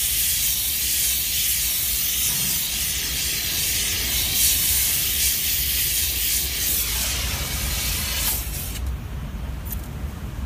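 Gas torch flame hissing steadily as it heats molten glass in a ladle, then cut off about eight and a half seconds in, leaving a low steady rumble.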